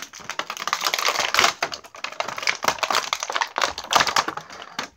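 Clear plastic action-figure packaging crinkling and crackling as it is handled and pulled open: a rapid, uneven run of sharp clicks and rustles.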